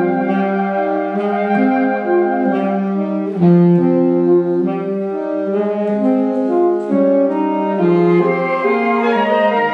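Saxophone quartet of soprano, alto, tenor and baritone saxophones playing live: sustained chords made of interlocking held notes that shift every half second to a second in a steady repeating pattern.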